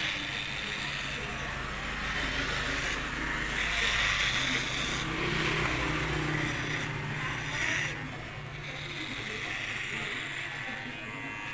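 Cordless electric hair clippers buzzing steadily as they shave short hair close to the scalp. The buzz swells and fades every second or two as the blade passes through the hair.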